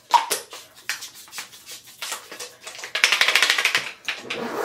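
Small plastic toiletry containers handled and packed, with scattered clicks and taps, and a short run of rapid rasping ticks about three seconds in.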